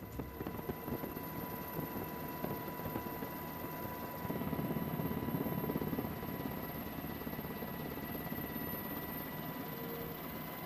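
Helicopter rotor and engine noise: a steady rumble with a fast low flutter and a thin steady whine, swelling slightly about four seconds in.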